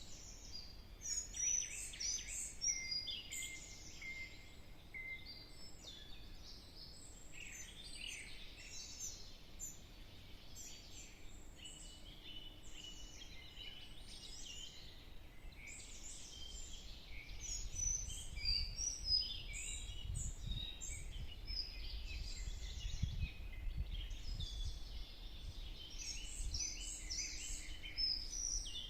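A chorus of forest birds singing and calling, with many overlapping chirps and whistles throughout. A low rumble joins in a little past the middle and fades out near the end.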